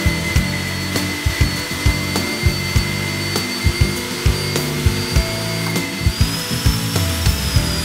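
Background music with a steady beat, over the steady whine of a Euroboor ECO.50-T magnetic drilling machine's motor as its cutter drills into steel plate.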